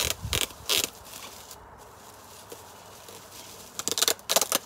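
Sellotape being pulled and ripped off a bubble-wrapped package, the plastic wrap crinkling: three short rips in the first second, then a quick run of several more near the end.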